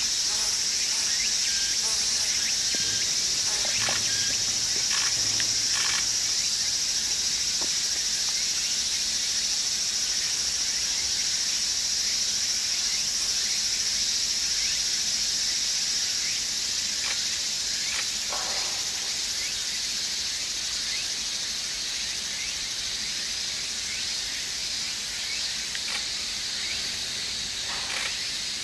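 Steady, high-pitched chorus of insects, easing slightly after about halfway, with a few brief faint sounds over it.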